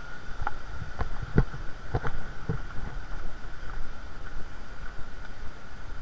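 Steady rush of a mountain stream with low wind rumble on the microphone, and a handful of short knocks and clicks in the first two or three seconds.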